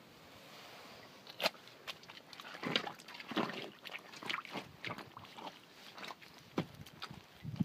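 Footsteps of tall rubber riding boots walking through wet mud and shallow puddles, an uneven series of steps starting about a second and a half in.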